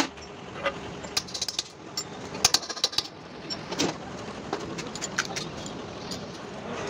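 Irregular sharp metallic taps and clinks of a hammer and hand tools on a diesel engine cylinder head, some coming in quick clusters of several strikes.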